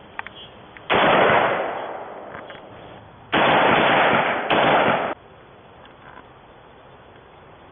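Bushmaster AR-15 rifle firing three loud shots: one about a second in that trails away over a couple of seconds, then two more about a second apart near the middle.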